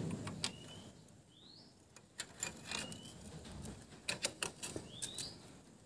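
Faint scattered clicks and taps of a ring wrench and valve-adjusting tool on a Honda Wave 100's tappet adjuster, as the lock nut is tightened after the valve clearance is set. A few short rising bird chirps sound in the background.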